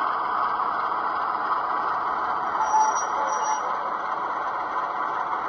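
Model Class 47 diesel locomotive running slowly along the track with a steady running sound. A brief high-pitched tone comes in twice, close together, about three seconds in.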